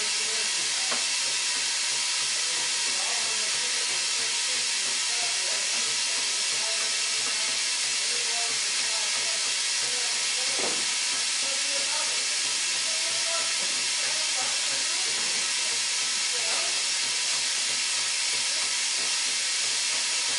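Moore No. 3 jig grinder running, its high-speed grinding head giving a steady high-pitched hiss with faint constant tones underneath.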